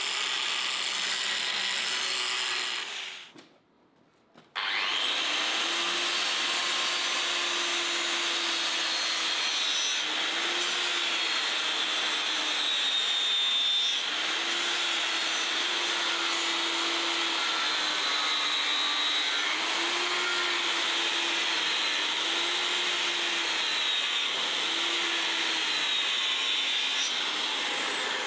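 Electric abrasive grinder running under load, a steady hiss of the abrasive grinding the workpiece over the motor's hum, which sags and recovers in pitch as the work is pressed in and eased off. It cuts out briefly about three seconds in, then resumes.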